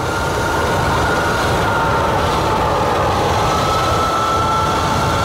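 Electric go-kart's Surron Storm Bee motor and drivetrain whining steadily at about 55 mph over road and wind noise; the whine drops slightly in pitch about halfway through as the kart eases off from 57 to 53 mph.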